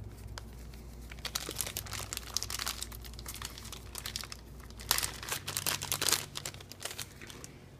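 Clear plastic parts bags crinkling and crackling as they are handled, with the sharpest crackles about five and six seconds in.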